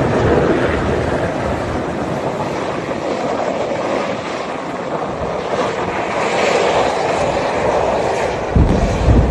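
Loud, steady rushing noise, with two short low thumps near the end.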